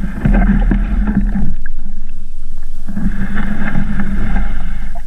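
Sabot sailing dinghy's hull scraping and grinding over a rocky shore as the boat is shifted, in two long loud stretches with a short pause about two seconds in.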